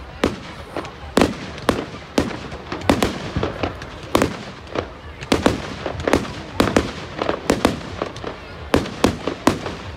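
Fireworks display going off: an irregular run of sharp bangs, about two a second, each ringing out briefly.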